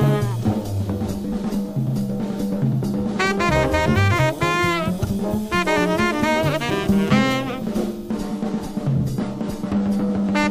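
Small jazz group playing: drum kit with snare and bass-drum hits and a moving bass line, with tenor saxophone phrases coming in and out over them.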